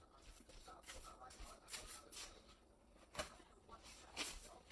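Near silence with a few faint light taps and clicks.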